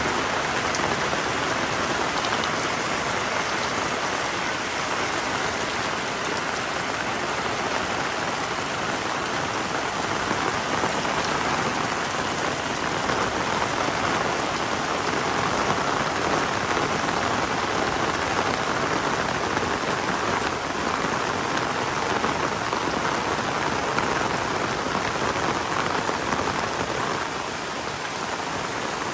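Heavy rain falling steadily, a dense even hiss of drops on surfaces, easing slightly near the end.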